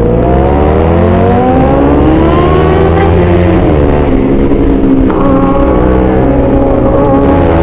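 Siren-type 'basuri' aftermarket horn on a Yamaha R6 motorcycle giving an ambulance-like wail that slowly rises and falls in pitch. A steady low drone runs underneath.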